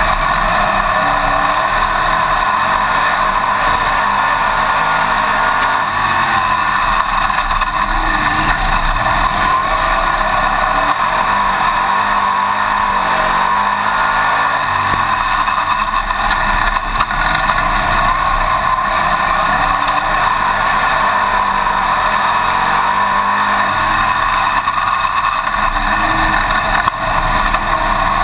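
Winged dirt-track modified's racing engine at full race speed, heard from inside the cockpit, its pitch rising and falling several times as the driver gets on and off the throttle.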